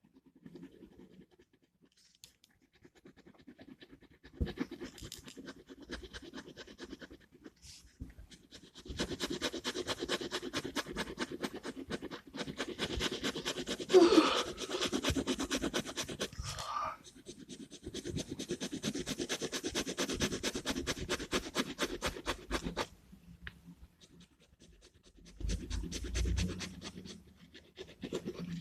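Gel pen colouring on paper: fast back-and-forth scratching strokes in several long runs, with short pauses between them.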